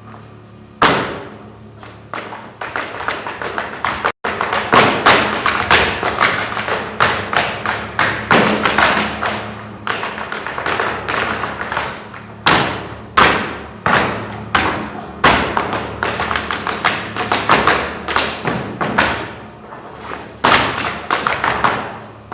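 Feet stamping and tapping on a stage floor: a long run of sharp thuds and taps, several a second in an uneven rhythm, some much harder than others. It starts about a second in and has a brief dropout a little after four seconds.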